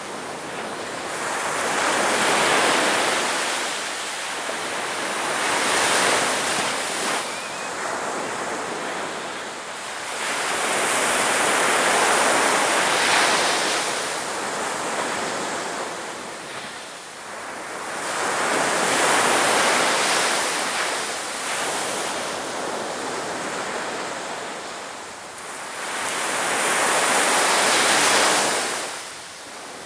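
Ocean waves breaking on a beach, the surf swelling and fading in about five surges, several seconds apart.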